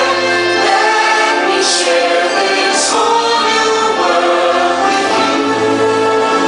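Orchestral show music with a choir singing held notes, the soundtrack of a fireworks show.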